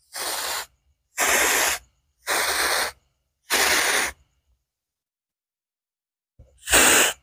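Hand sprayer misting insecticide onto mai vàng (yellow apricot) trees: five short hissing squirts, four about a second apart and a last one after a gap of about two and a half seconds.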